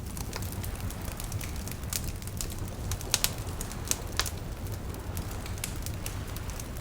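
Wood campfire burning with a steady low rumble and frequent sharp crackles and pops, the loudest few about three and four seconds in.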